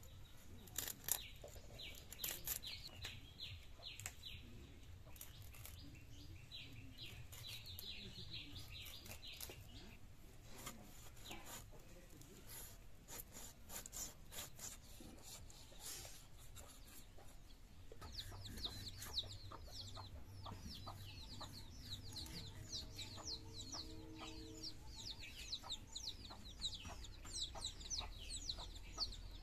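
Chickens clucking with rapid, high, falling peeps like chicks from about two-thirds of the way in. Over them come sharp clicks and scrapes of a bonti blade cutting through a large fish, thickest in the first half.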